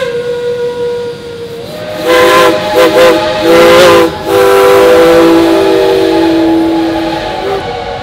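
Steam locomotive's three-chime whistle: a fading note, then three short blasts and a long blast of about three seconds, over steady steam hiss.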